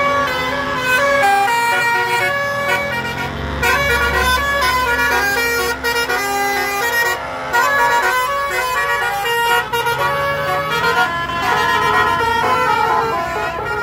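Bus 'telolet' musical horns playing quick, stepped multi-note melodies over a running bus engine. The engine note rises partway through.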